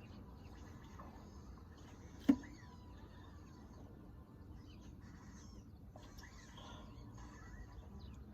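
Faint birds chirping in the background, with one brief sharp click about two seconds in.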